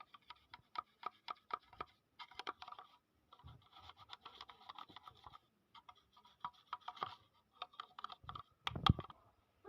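Brush scrubbing the plastic detergent drawer of a washing machine to clear detergent scale: runs of quick, scratchy strokes with short pauses, and a louder knock near the end.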